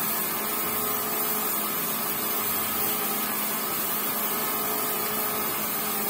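Tap water running steadily into a soapy sink basin.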